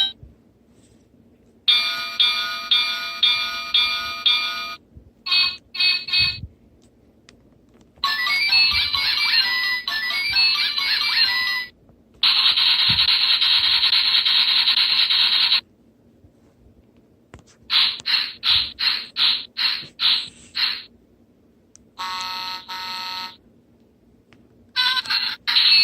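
A string of short electronic sound effects and jingles, each one separated by a few seconds of silence. They include melodic beeping runs, a steady held tone lasting a few seconds, and a quick series of about eight pulses.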